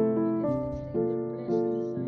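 Slow background music on piano, with a new note struck about twice a second and each one fading after it.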